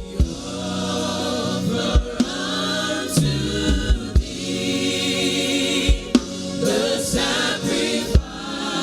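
Live gospel worship music: several voices singing together over a drum kit and bass, with sharp drum hits every second or two.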